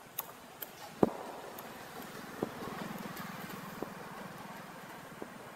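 Scattered sharp clicks and knocks, the loudest a little after a second in, over a faint low drone that swells briefly in the middle.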